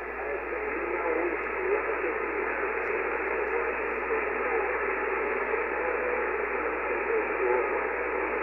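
Amateur HF transceiver receiving the 40 m band in lower sideband: a steady, muffled static hiss through its narrow voice filter, with faint wavering traces of a weak voice buried in the noise.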